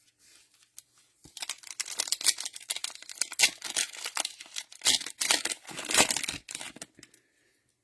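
Cellophane wrapper of an NFL Mosaic cello pack being torn open and crinkled by hand. It makes a dense run of crackles starting about a second in and stopping near the end.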